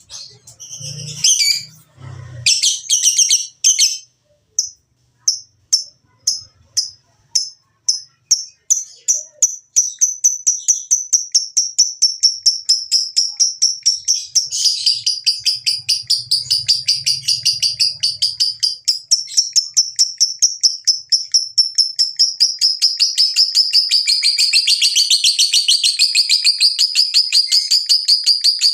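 Lovebird ngekek: a long chattering trill of high, rapidly repeated notes. It begins as a few separate calls and spaced notes, which speed up about a third of the way in into a fast, unbroken trill that carries on.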